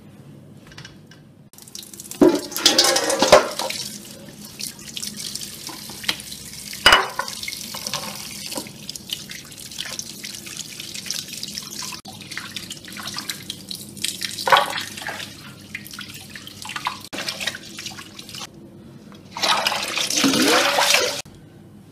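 Tap water running into a stainless steel bowl of raw chicken legs, splashing as hands rub and rinse the pieces. It starts about a second and a half in, with louder splashes now and then, and a loud rush of water near the end that stops suddenly.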